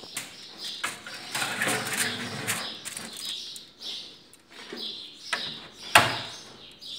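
Foil-covered metal baking tray rustling and scraping as it is slid onto the rack of an electric countertop oven, then the oven's glass door shut with a sharp clack about six seconds in.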